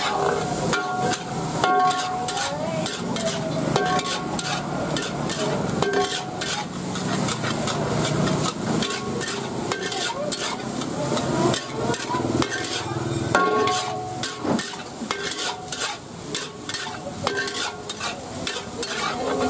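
Fried rice sizzling in a wok while a metal spatula scrapes and clacks against the pan in quick, repeated strokes, with short metallic rings from the wok.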